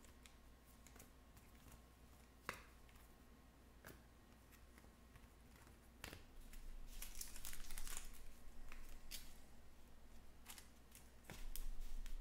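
Faint handling noises of trading-card packs: a few scattered clicks, then rustling and crinkling of wrappers from about six seconds in and again near the end.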